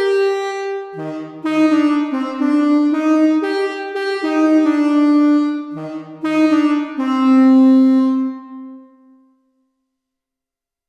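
Synthesizer chords played through the Donner Vintaverb stereo reverb pedal on its Studio algorithm, changing about once a second. The last chord fades away in the reverb tail and dies out to silence about nine and a half seconds in.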